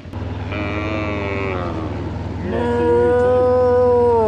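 Cattle mooing: two long moos, the second longer and louder, dropping in pitch as it ends, over a steady low engine drone.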